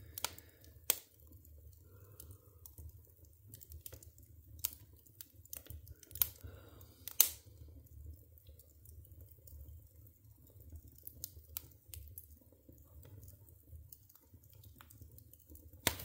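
Wood fire crackling in a wood stove's firebox: burning logs give off irregular sharp pops and snaps, the loudest about seven seconds in, over a low steady rumble.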